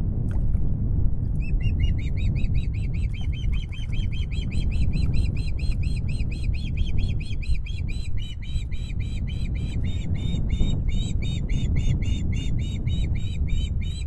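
Juvenile osprey giving a fast, steady series of short, high, repeated call notes, about five a second, typical of food-begging. The calls sit over a steady low rumble.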